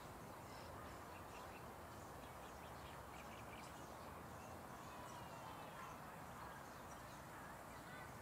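Faint, scattered bird calls over a steady background hiss of open-air ambience.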